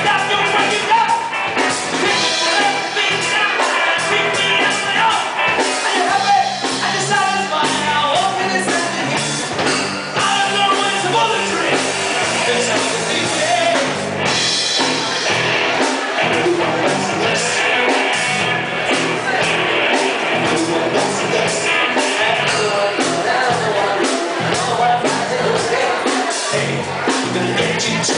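Live rock band playing hard rock: a male lead vocal over electric guitar, bass and drum kit, with a steady beat.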